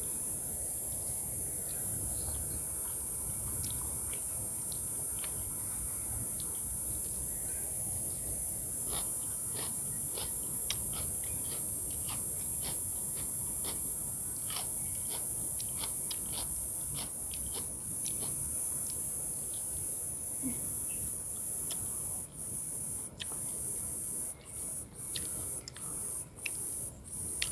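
Cicadas droning steadily and high-pitched, breaking into short pulses near the end. Faint clicks and smacks of someone eating rice by hand off a banana leaf.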